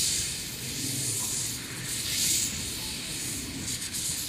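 Hudswell Clarke 0-6-0 saddle tank steam locomotive moving off slowly with its cylinder drain cocks open. Hissing steam comes in slow, uneven surges, the strongest about halfway through, over a low rumble.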